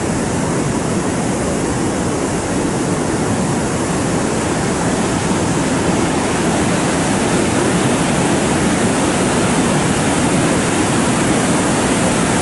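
Floodwater spilling over a lake's overflow weir: a steady rush of falling and churning water that gets a little louder toward the end. The lake is full after good rains and overflowing.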